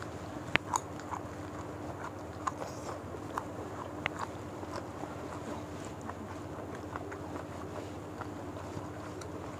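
Close mouth sounds of people eating rice and fried fish with their hands: scattered wet clicks and smacks of chewing, the sharpest about half a second in, over a faint steady hum.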